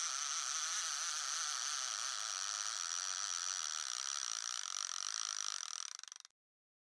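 Shimano Ocea Jigger reel's drag buzzing steadily as a hooked fish pulls line against the bent jigging rod. It fades out about six seconds in.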